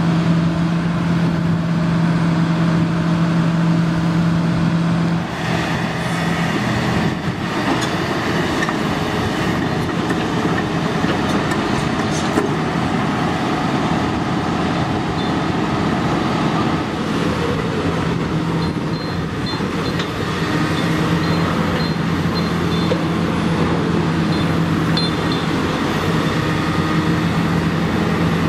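Kobelco SK350 NLC crawler excavator running with a steady engine hum. About five seconds in, a rougher, rattling noise takes over for some ten seconds while the hum fades back, then the steady hum returns.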